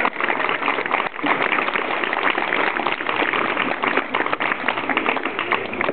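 A crowd applauding, a dense, steady clapping with no break.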